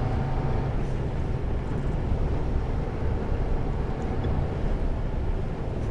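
Mercedes-Benz Antos 1824 lorry's diesel engine running steadily with road noise, heard from inside the cab while driving.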